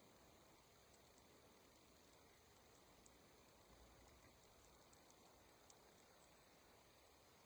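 Steady high-pitched drone of insects in the surrounding woods, faint but continuous.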